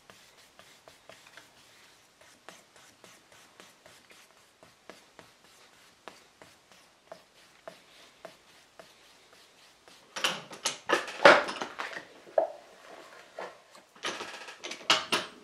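Fine 800-grit sandpaper rubbed by hand over a shellac-finished wooden box, faint quick strokes about three a second. About ten seconds in, and again near the end, louder clatter and knocks of the wooden box being handled and shifted in a bench vise.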